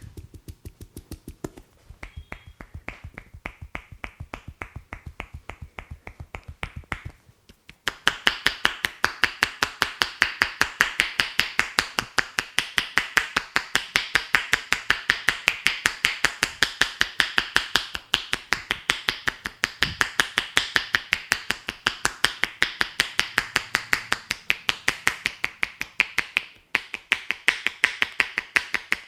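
Rapid, even run of sharp snapping taps from a barber's hands working a head in an Indian head massage, several a second. Softer for about the first seven seconds, then a brief pause and a louder run.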